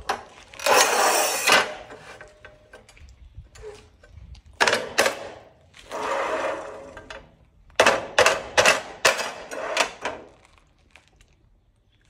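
Manual rail tile cutter's scoring wheel scraping along a porcelain tile in two long rasping passes, followed by a series of sharp clicks and knocks as the scored tile is snapped on the cutter.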